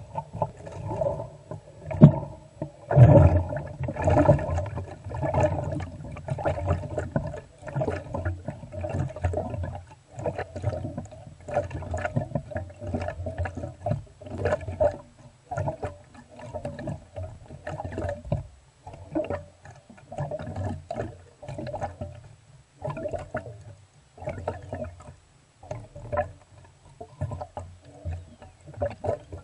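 Air bubbling and gurgling up through the water inside a plastic-bottle water rocket on its launch tube as it is pressurised, in an uneven run of gurgles, louder in the first few seconds.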